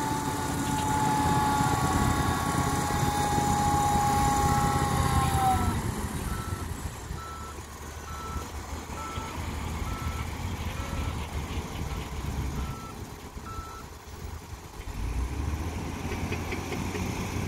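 Tipper dump truck's diesel engine running raised with a steady high whine while the bed is tipped; the whine sags slightly and stops about six seconds in and the engine drops back. A reversing alarm beeps about once a second through the middle, and the engine picks up again near the end.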